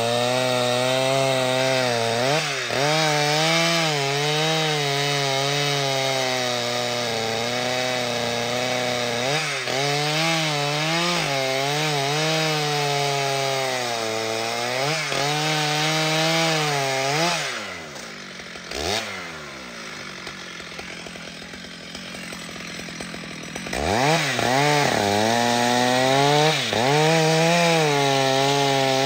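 Large professional two-stroke chainsaw cutting trembesi wood, its engine pitch sagging and recovering as the chain bites. About two-thirds of the way through it comes off the throttle, blips once, and runs lower and quieter for a few seconds, then revs back up and cuts again.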